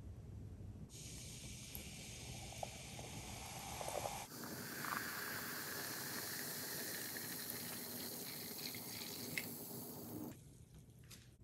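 Carbonated lemon-lime soda poured from a plastic bottle into a plastic measuring cup: a steady splashing, fizzing rush that starts about four seconds in and cuts off about six seconds later. A fainter steady hiss comes before the pour, and a few light fizz crackles follow it.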